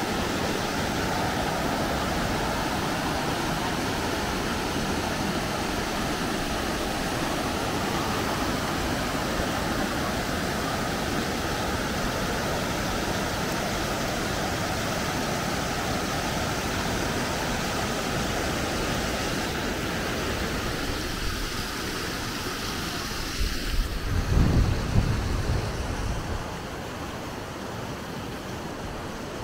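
Steady rushing of falling water from a waterfall. Near the end the rush drops away and low gusts of wind buffet the microphone.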